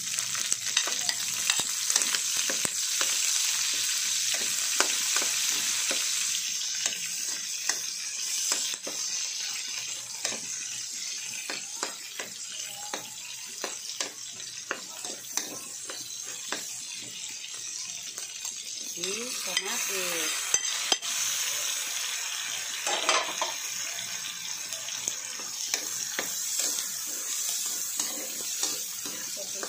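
Onions and tomatoes sizzling in hot pork fat in a stainless steel wok, with a metal spatula stirring and clicking against the pan. The sizzle is loudest for the first several seconds, eases, then picks up again after about twenty seconds.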